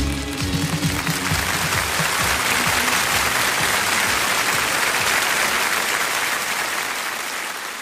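Audience applause as a song's last notes die away, the clapping fading out near the end.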